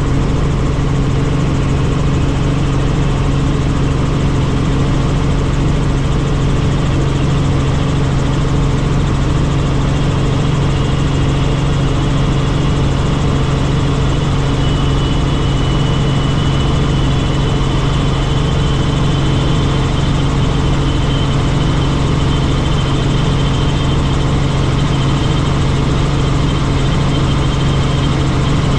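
Helicopter in flight: a steady, loud drone of engine and rotor with a constant low hum. A faint high whine comes in about halfway through.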